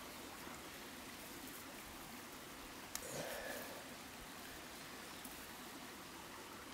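Stream flowing steadily, with one sharp click about three seconds in followed by a brief rustle.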